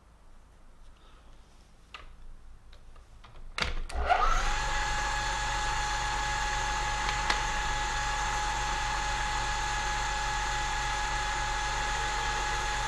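A milling machine's spindle motor switched on about four seconds in and running steadily with a whine, a small drill bit in the chuck. Before it starts, only faint clicks of handling.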